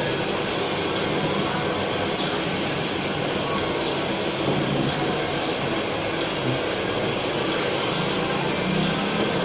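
A blower running steadily: an even rushing noise with no breaks.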